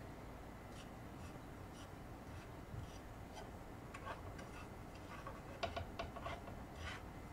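Sugar melting to caramel in a hot nonstick frying pan, stirred with a plastic spatula: faint scattered ticks, then a cluster of sharper clicks and scrapes from the spatula on the pan about six seconds in.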